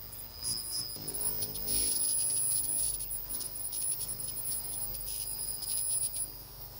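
Handheld pulsed laser cleaner stripping corrosion off steel girth-gear teeth: a steady high-pitched whine with fast, fine crackling as the beam ablates the rust, over a low hum.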